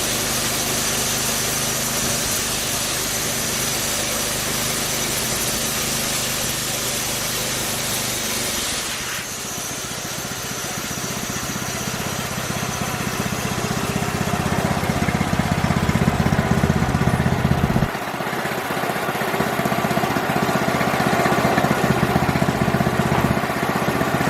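Homemade band sawmill's small engine running steadily while the band blade cuts through a soft cedar log, a high hiss over the engine note. About nine seconds in, the hiss stops abruptly and the engine sound changes, and it changes again near the end.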